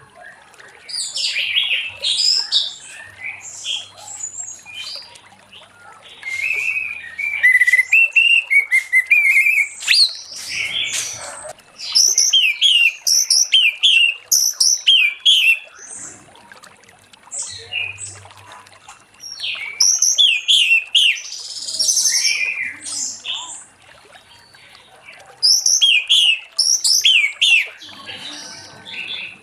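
Orange-headed thrush singing, bouts of quick, varied high notes with short pauses between them.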